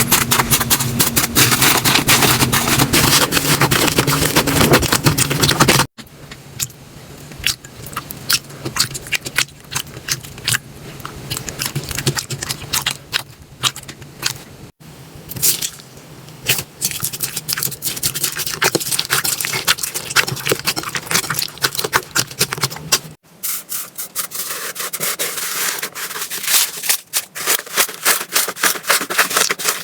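Slime being squeezed, pressed and poked by hands: dense runs of small wet clicks and crackles. The texture changes abruptly at cuts about 6, 15 and 23 s in, and the first stretch is the loudest.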